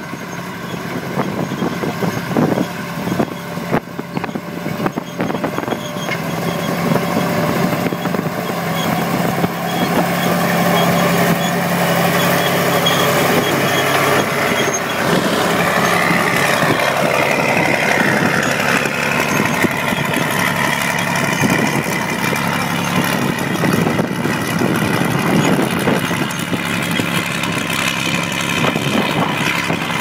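Vickers Vigor crawler tractor's diesel engine running steadily under load as it pulls a plough past, getting louder as it comes close in the middle and easing off as it moves away, with clanking from its steel tracks.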